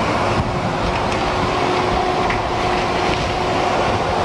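Steady diesel engine noise from a heavy Volvo truck approaching at close range on a dirt road, mixed with wind rush on the microphone.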